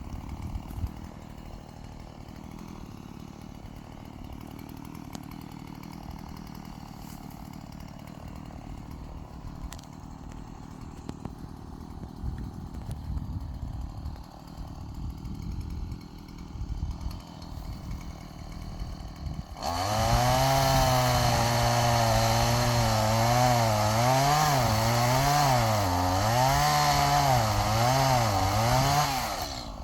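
Chainsaw idling quietly, then about twenty seconds in opened up to a loud run, its pitch rising and falling as it works through the wood, for about ten seconds before dropping back.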